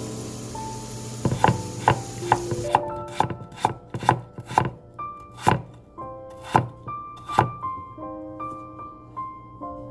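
Knife chopping on a cutting board, about two strokes a second, starting about a second in, over soft piano background music.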